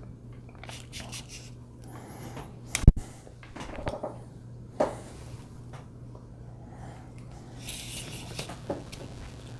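Handling noise from a phone being fitted and adjusted in a plastic clamp mount on a selfie stick: scattered rustles and small clicks, with one sharp click about three seconds in and another near the middle, over a faint steady hum.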